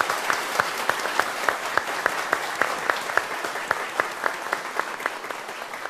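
Studio audience applauding, with a few close handclaps standing out over the crowd at an even rhythm of about four a second. The applause dies down near the end.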